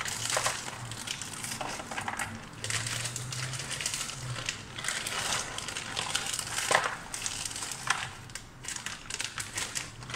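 Plastic bag of frozen vegetables crinkling as it is handled and shaken, with irregular sharp clicks of frozen pieces dropping out into a bowl.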